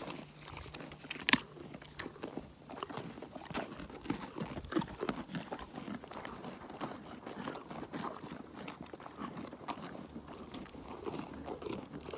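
Alpacas crunching carrots right at the microphone: a quick, irregular run of crisp crunches and chewing. One sharp, loud knock about a second in.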